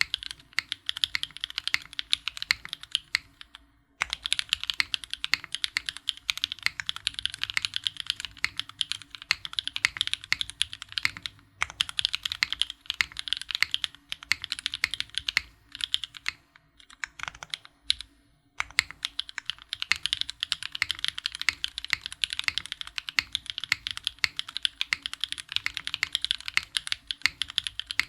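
Fast, continuous typing on a custom Sebas mechanical keyboard with Gateron Raw switches on an aluminum plate, the keystrokes clacking densely. There are a few short breaks, the longest near the middle.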